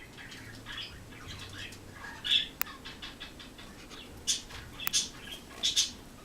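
Short bird-like chirping calls, several of them, with two sharp clicks about two and a half and five seconds in.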